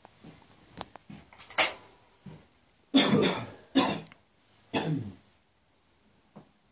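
Someone coughing four times over about three seconds.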